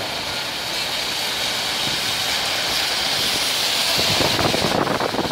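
Heavy rain hissing steadily over a street, with cars and microbuses driving through on the wet road; the tyre spray grows louder about four seconds in as vehicles pass close.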